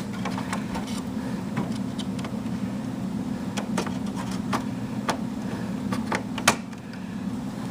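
Light scattered clicks and knocks of a computer memory module being handled and set into its motherboard slot, the sharpest about six and a half seconds in, over a steady low hum.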